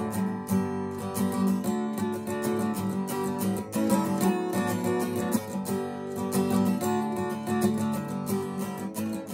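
Acoustic guitar strummed steadily through a run of chords, with no voice.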